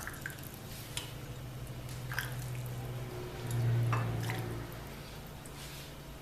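Ginger soup being stirred and poured into cups: a few light clinks and small splashes of liquid over a steady low hum.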